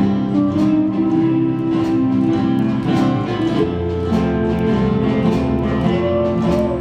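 Live country band of strummed acoustic guitars with a lap steel guitar playing an instrumental passage over a steady bass line, the steel sliding up into a note near the end.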